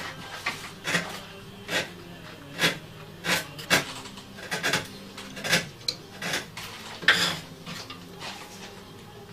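A small hand tool scraping and clinking against a wooden melody box under repair, in about a dozen short, irregular strokes.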